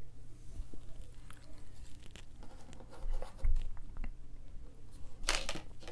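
Handling of a model airliner on a desk: small clicks and taps as parts are fitted, a low thump about three and a half seconds in as the model is set down, and a short rustle near the end.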